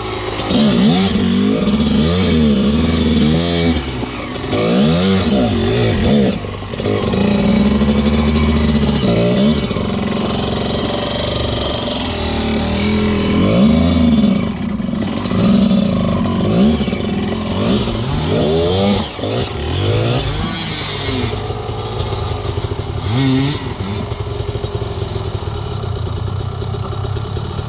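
Enduro dirt bike engine revving up and down again and again under load on a rough off-road trail, with clatter from the bike. About twenty seconds in, the revving stops and the engine runs steadily and low.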